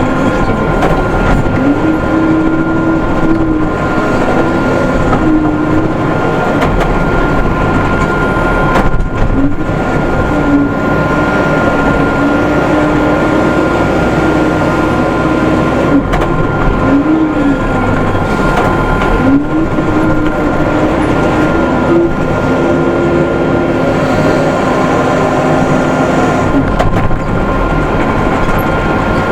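Case 580M backhoe loader's four-cylinder diesel engine running under load while the front bucket scrapes hard ground. Its pitch dips and rises several times as the engine works against the load.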